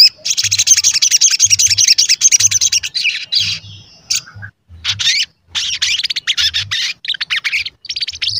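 Olive-backed sunbird (sogon) singing: a long, rapid, high chattering trill for about the first three seconds, then a string of short bursts of sharp chirps.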